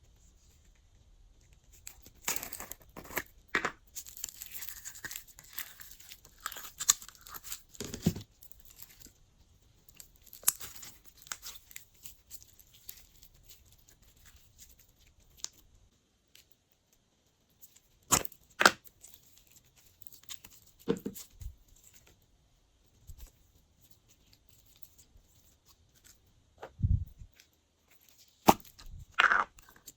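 Glossy slime being worked by hand, stretched and pulled apart with sticky tearing and crackling, then a few sharp separate pops with quiet gaps between.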